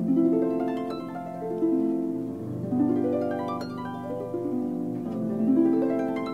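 Background music of plucked strings playing repeated runs of ringing, overlapping notes that step up and down in pitch.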